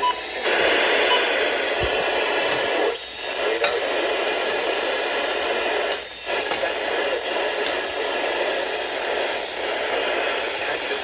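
Radio static: a steady hiss of noise from a radio receiver with no voice on it, dropping away briefly about three seconds in and again about six seconds in.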